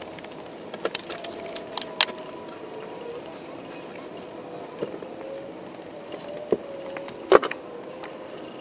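Scattered sharp metal clinks and taps of hand tools on engine parts, a cluster in the first two seconds and a few more later, the loudest near the end, over a faint wavering hum.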